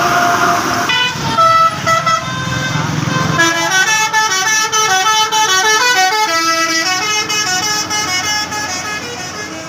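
A bus's basuri telolet horn, a set of electric horn trumpets, playing a tune in quick stepped notes. A few separate notes come first, then about three seconds in it breaks into a fast, continuous melody that runs almost to the end.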